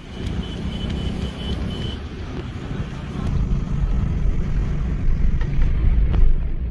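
Road and engine noise heard from inside a moving car: a steady low rumble that grows somewhat louder toward the end, with a thin high tone in the first couple of seconds.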